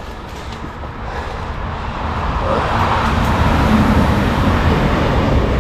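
Train passing close by on the railway track, a rumbling rush of wheels on rail that grows steadily louder.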